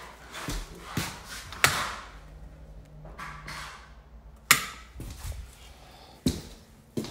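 Irregular sharp knocks and scraping of hand tools on bare wooden stairs being stripped for repair, about five knocks with the loudest about a second and a half in and again past four seconds.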